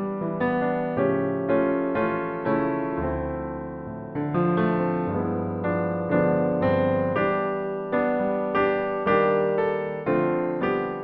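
Background music: an electric piano playing a gentle melody over chords, notes struck about twice a second and fading after each.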